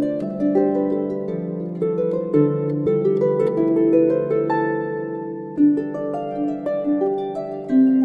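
Background music played on plucked strings: a gentle melody of single notes following one another.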